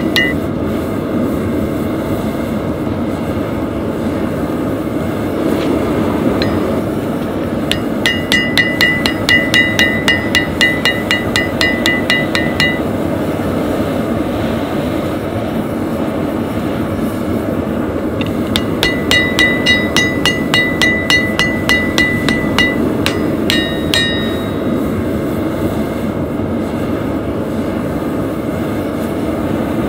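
Hammer blows driving a punch into a red-hot axe head on an anvil, in two runs of about three blows a second, each blow ringing brightly off the anvil. A steady rushing noise runs underneath.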